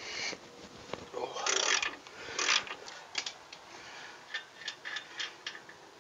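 Hand ratchet wrench clicking in a few quick bursts while undoing the lower shock absorber mounting nut. About three seconds in, lighter scattered clicks follow as the loosened nut is worked off.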